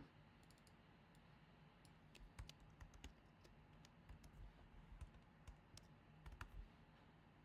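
Faint keystrokes on a computer keyboard as text is typed, irregular taps a few times a second.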